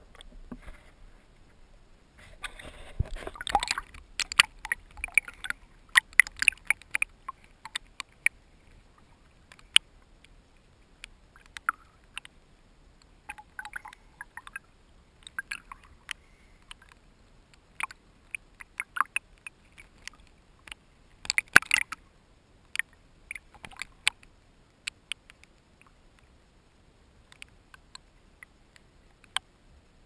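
Water splashing and lapping against a half-submerged camera as a snorkeler swims at the surface. It comes as irregular clusters of sharp clicks and crackles, busiest in the first several seconds and again about two-thirds through, with quiet stretches between.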